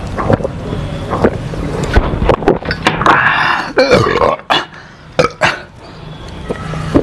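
A man gulps down a drink in regular swallows, then lets out a loud burp lasting about a second, some three seconds in. A few sharp clicks follow.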